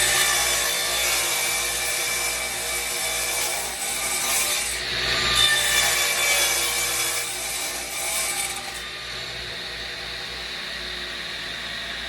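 An electric saw runs while cutting through a large wooden board, its motor whine steady over the rasp of the blade. The pitch dips and picks back up about five seconds in, and the cutting noise grows fainter after about nine seconds.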